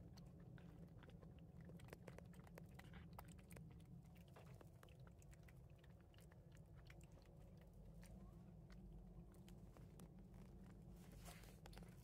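Cats eating wet food from plates: faint, irregular smacking and licking clicks of chewing, over a low steady hum.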